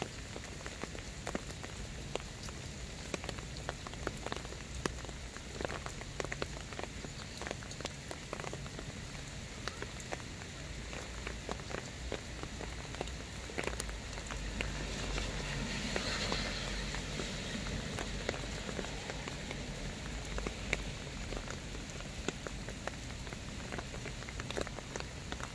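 Rain falling on wet soil and a patch of grass and poppies: a steady hiss dotted with countless small raindrop ticks. The hiss swells a little with a low rumble about halfway through.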